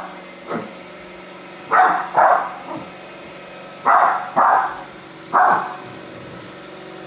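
Dog barking at a running Roomba robot vacuum: five loud barks, a pair about two seconds in, another pair about four seconds in and a single one about five and a half seconds in, over the robot's faint steady motor hum.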